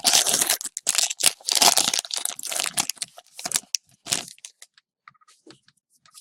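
Hockey card pack wrapper being torn open and crumpled, crinkling in a run of noisy bursts that stops about four seconds in, followed by a few faint ticks.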